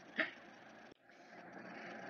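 Quiet room tone in a pause between spoken sentences, with one short syllable from a woman's voice just after the start.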